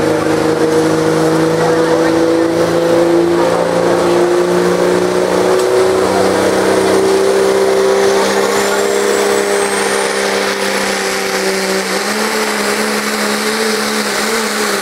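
A diesel pulling truck's engine is held at high revs, its pitch climbing slowly and then shifting about twelve seconds in.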